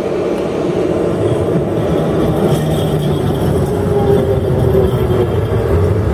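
A Czech Railways class 242 electric locomotive hauling passenger coaches passes close by at speed: a steady rolling rumble of wheels on rail, with low humming tones running through it.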